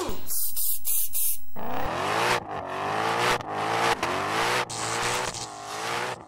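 Car engine sound effect accelerating hard through several gear changes, its pitch climbing then dropping at each shift, after about a second and a half of hissing noise.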